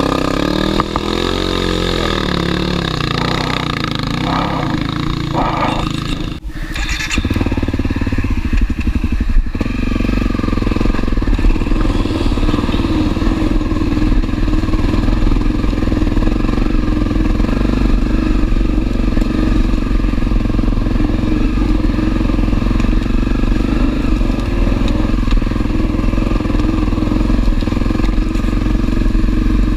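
Honda CRF250L dirt bike's single-cylinder four-stroke engine revving up and down, dropping off briefly about six seconds in, then running steadily under way.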